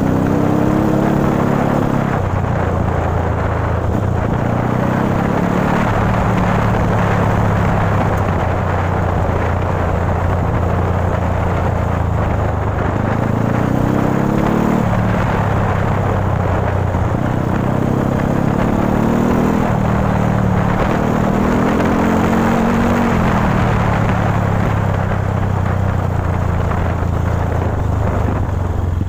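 Dirt bike engine running under way on a trail, its revs climbing and dropping back several times as the throttle is worked.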